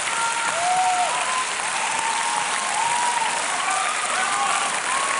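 Large studio audience applauding steadily, with cheering voices rising and falling over the clapping.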